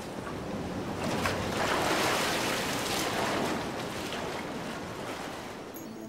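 Sea water surging and sloshing in a sea cave, the wash swelling from about a second in and slowly easing off.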